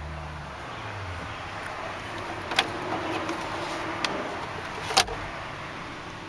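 2009 Hummer H2 glove box clicking open and, about two and a half seconds later, its lid snapping shut with a louder click, over a steady hum in the cabin.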